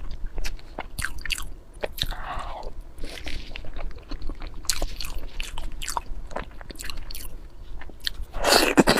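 Close-miked eating: a person biting and chewing food with many quick wet clicks and smacks at an uneven pace, and a louder, noisier burst of mouth sound near the end.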